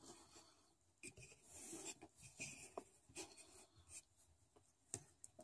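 Faint rustling and soft scraping of nylon 550 paracord being handled and pulled through a weave, with a few small ticks.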